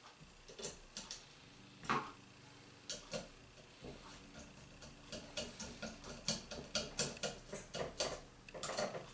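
Small hard clicks and taps of printer-kit parts, screws and hand tools being handled during assembly, a few at first and then coming quickly, several a second, from about five seconds in.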